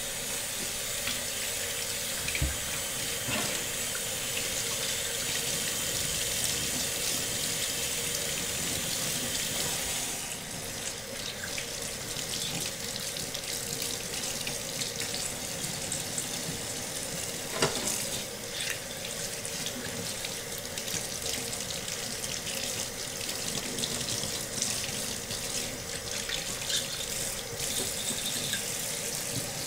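Kitchen faucet running steadily into a stainless-steel sink, the stream splashing over brass trumpet slides and parts as they are rinsed. The splashing softens a little about a third of the way in, and there is a single sharp knock a little past halfway.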